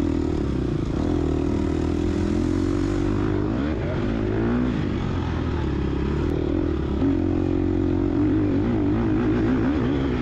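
GasGas EX250F dirt bike's 250 cc four-stroke single-cylinder engine running hard off-road, its pitch rising and falling as the throttle opens and closes.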